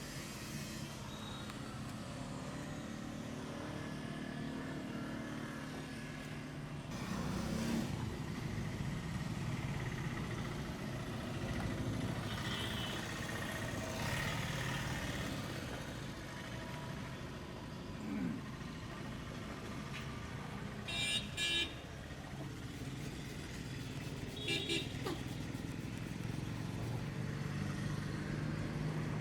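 Street traffic: engines running with a steady rumble that swells briefly early on as a vehicle passes. Vehicle horns give a quick run of short beeps after about twenty seconds, then another short toot a few seconds later.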